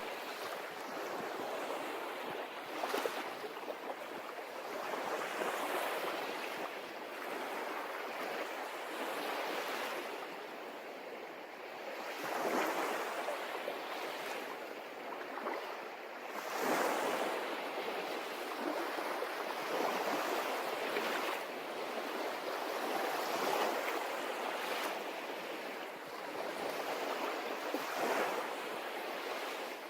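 Sea water washing and lapping, swelling and easing every few seconds.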